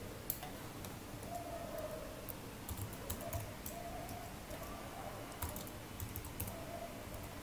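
Faint typing on a computer keyboard, with irregular key clicks in short runs.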